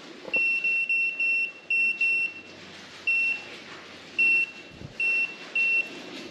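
A handheld portable sonar fish finder's fish alarm beeping, signalling fish detected below the sonar float. About six short high-pitched beeps come in quick succession, then four more at uneven gaps.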